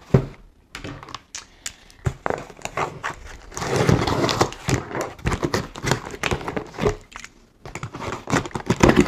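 Box cutter slicing the packing tape on a cardboard shipping box, with the cardboard scraping and tapping under the hands. Scattered clicks and taps, with a few seconds of denser scratchy cutting in the middle.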